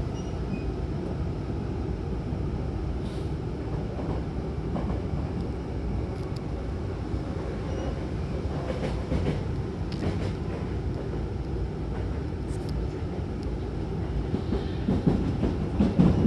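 Hankyu commuter train car running at speed, heard from inside: a steady rumble of wheels on rail. Near the end it turns louder, with a rougher clatter.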